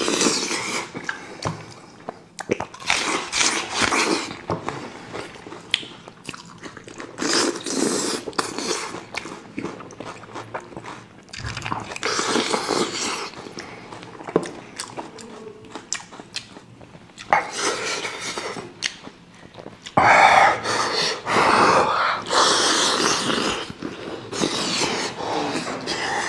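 Close-miked chewing and biting of braised sheep head meat in spicy sauce, in irregular bursts, loudest about twenty seconds in.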